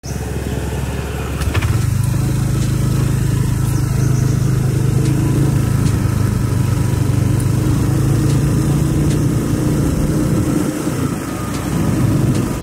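Motorbike engine running steadily while riding, with road noise; it eases briefly near the end, then picks up again.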